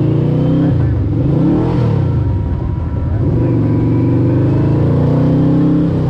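Yamaha VMAX's 1200cc V4 engine running under load: the engine pitch dips about a second and a half in, then climbs steadily again as the bike accelerates.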